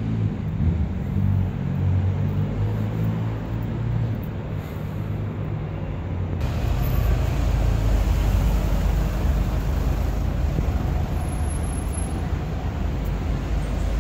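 Street traffic noise with a vehicle engine's low rumble. About six seconds in, the sound changes abruptly to a louder, rougher rush with a deep rumble.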